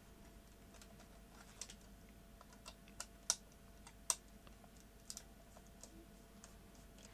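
Small screwdriver undoing the cabinet screws of a Sony DCR-HC51E camcorder: faint, irregular light clicks and ticks of the driver bit and screws against the plastic housing, the sharpest a little after three seconds and again about four seconds in.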